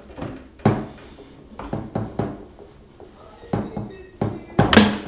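Foosball play on an Ullrich Sport table: the ball being struck by the plastic figures and knocking off the table walls, with rods clacking. The knocks come at irregular intervals, and the loudest cluster falls near the end.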